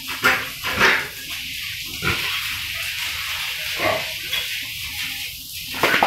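Pigs giving short calls, about five in a row, a few loud ones close together at the start and the rest spaced out.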